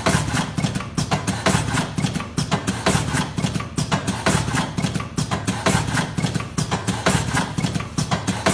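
Electric fully automatic cigarette rolling machine running, its pneumatic mechanism cycling in a fast, even rhythm of sharp clacks over a steady low hum.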